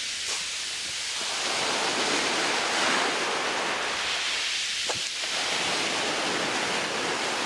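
Small sea waves washing onto a pebble beach: a steady hiss of surf that swells a little about two and four seconds in.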